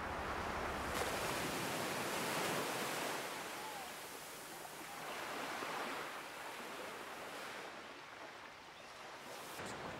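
Sea waves washing onto a sandy beach: a steady rush of surf that swells and falls away a few times.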